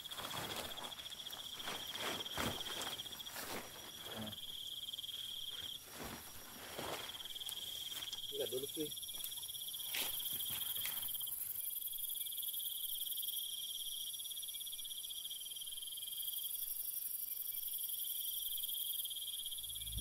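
Night insects trilling steadily in a high, fast-pulsing band, with a higher hiss that comes and goes. Over roughly the first ten seconds, nylon tent fabric rustles and tent poles click as a dome tent is put up.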